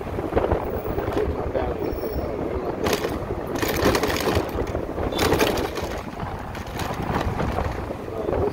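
Wind and road noise from an electric motorcycle riding down a city street, with no engine sound, only a steady rushing. A few louder, sharper rattles come about three to five seconds in as the bike crosses rough, patched pavement.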